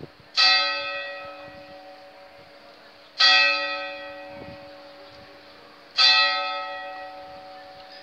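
Church tower bell struck three times, slow and evenly spaced about three seconds apart, each stroke ringing out and slowly fading over a low lingering hum: the clock striking noon.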